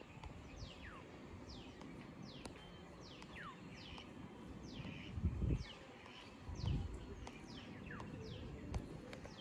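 A bird calling over and over, each call a short whistle falling steeply in pitch, about one a second. Twice around the middle a brief low rumble rises above it.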